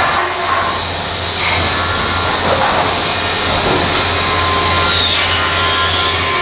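Woodworking machinery running steadily in a shop processing pine boards, a constant hum, with a few short sharp noises of the board being handled or cut about a second and a half in and again near five seconds.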